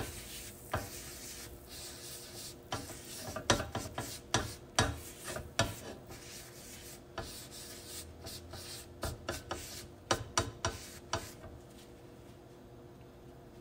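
Butter being rubbed by hand over the surface of a four-cup non-stick pancake pan: irregular rubbing and scraping strokes with sharp knocks, stopping about eleven seconds in.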